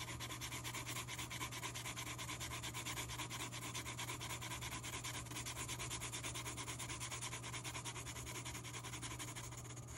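Graphite pencil scribbling back and forth on sketchbook paper, a rapid, even scratching of about five strokes a second as a patch of tone is shaded in with the side of the lead.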